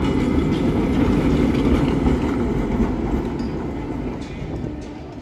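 Vintage ASEA M21 tram running past on street track, a steady rolling rumble with a low hum. The sound fades as the tram pulls away, about three seconds in.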